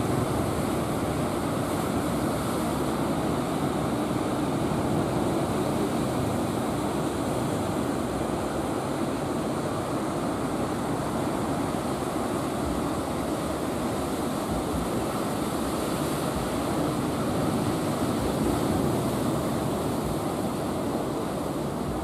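Steady rushing of ocean surf breaking on the beach, with no single wave standing out.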